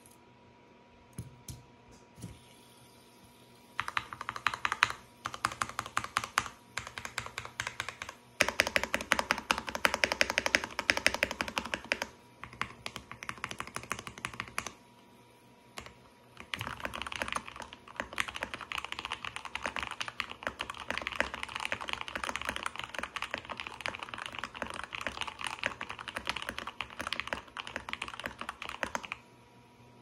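Typing on a Keychron K2 mechanical keyboard fitted with lubed Gateron CJ linear switches: fast runs of clacky keystrokes with short pauses, starting about four seconds in after a few faint taps.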